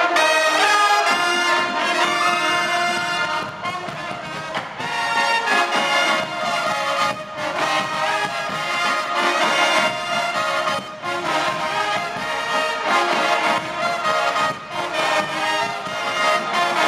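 College pep band of trumpets, trombones and saxophones playing a loud tune together, with drums keeping a steady beat.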